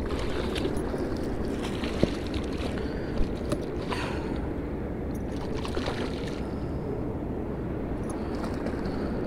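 Hooked striped bass thrashing and splashing at the water's surface several times, over a steady rush of wind and water noise.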